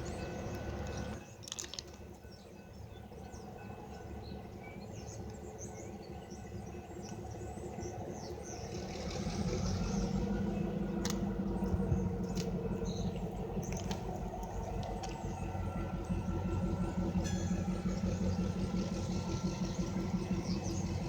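Diesel freight locomotive engine running in a rail yard, its low rumble growing louder about nine seconds in, with faint high squeaks over it.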